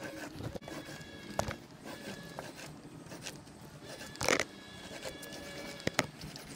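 Small paint roller working wet paint, on the board and in a plastic paint tray: faint sticky rolling with scattered clicks, and a brief louder rasp about four seconds in.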